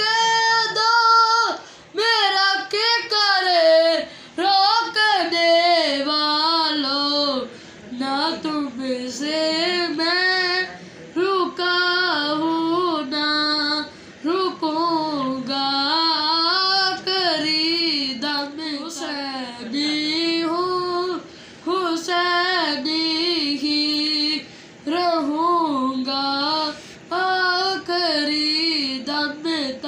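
A boy singing an Islamic devotional song solo and unaccompanied. Phrases a few seconds long have a wavering, ornamented melody, with short breaths between them.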